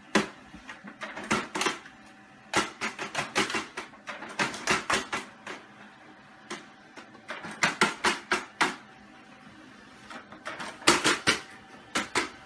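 A cat's paws batting and tapping at a printer's plastic paper tray and the paper in it, in several quick clusters of sharp clicks and clatters.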